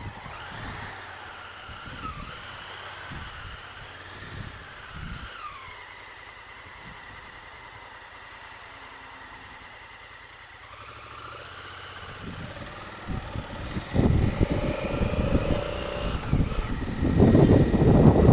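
Honda Africa Twin CRF1000L's parallel-twin engine idling quietly at a standstill, then revving up as the bike pulls away and accelerates, getting much louder about fourteen seconds in. Low wind rumble on the helmet-mounted microphone builds near the end as speed rises.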